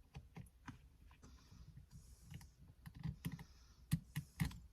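Faint, irregular small clicks and light scraping of fingers working a spring-loaded clip off a Toyota Corolla Hatchback's manual shift lever, with a few slightly louder clicks in the second half.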